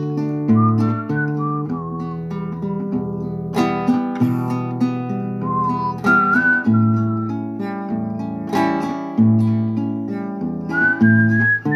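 Background music: acoustic guitar over held bass notes, with a whistled melody line gliding above it.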